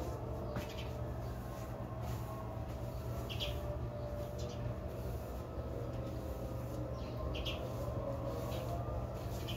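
A steady low machine hum with fixed tones, like outdoor air-conditioner units running, with short faint swishes every second or few from a broom sweeping dust off the tiled floor.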